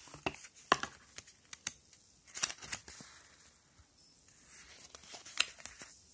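Cardboard packaging and a paper insert being handled: intermittent rustling and crinkling with sharp clicks, the sharpest about three-quarters of a second in and again near the end.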